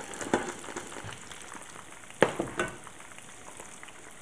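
Meatballs and hot oil sizzling in the pans as browned meatballs are transferred with tongs into simmering tomato sauce. A few sharp knocks of the metal tongs against the pan, one near the start and a louder pair about two seconds in.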